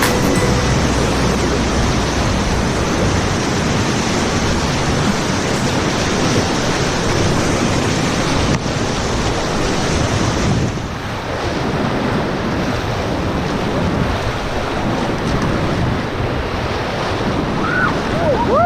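River whitewater rushing loudly around a raft running a rapid, with wind buffeting the microphone; the rush eases slightly about halfway through.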